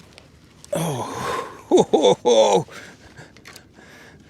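A man's breathy, strained gasp followed by three short loud grunting exclamations ("oh") about two seconds in, the effort of hauling a heavy redfish aboard a kayak. Small clicks and knocks of handling follow.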